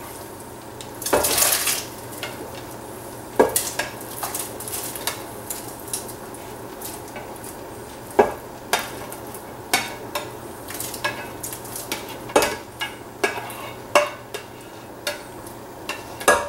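A spoon scraping and knocking against a glass baking dish as chopped cooked chicken is pushed into a pot of broth, with irregular clinks and a longer scrape about a second in. Underneath is a steady hiss from the broth just starting to boil.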